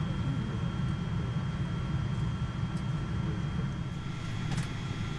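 Steady low rumble of cabin noise inside a Boeing 777-200 airliner, with faint steady high-pitched tones above it and a small click about four and a half seconds in.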